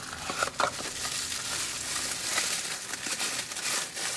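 Plastic bubble wrap crinkling and rustling with many small crackles as a wrapped part is pulled out of a cardboard box and handled.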